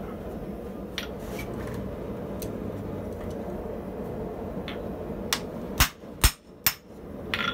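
Hammer blows on the strike plate of a rotary hot shear, shearing a hot 8 mm steel bar: three sharp metal strikes about half a second apart near the end, then a lighter clink. A few faint metal clicks come earlier as the bar is set in the shear.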